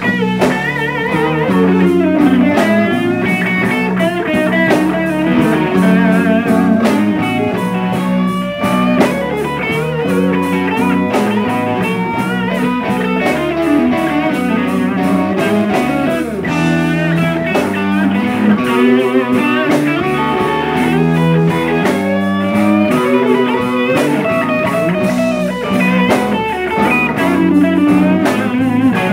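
Live blues band playing an instrumental section: electric guitars over a drum kit, with a lead guitar playing bent, wavering notes.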